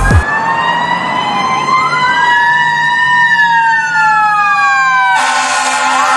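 Emergency vehicle siren wailing: several slow tones rise and fall and overlap. About five seconds in, a harsher buzzing sound joins them.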